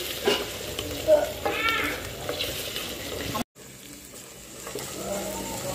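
Chopped vegetables sizzling in a non-stick kadai as a wooden spatula stirs and scrapes them, with a few light knocks of the spatula against the pan. The sound cuts out for an instant about halfway, then the sizzle goes on more quietly.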